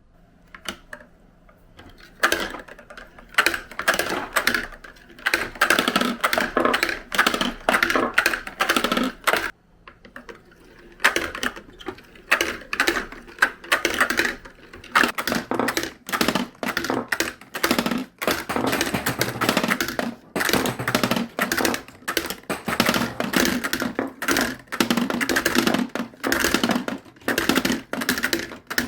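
Many marbles rolling and clacking down a plastic marble run, a dense stream of clicks and rattles. It starts about two seconds in and briefly lets up about a third of the way through.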